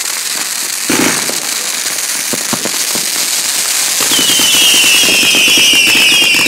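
Consumer fireworks going off: steady crackling with a bang about a second in. From about four seconds in, a rapid run of shrill, falling whistles sounds over dense crackling.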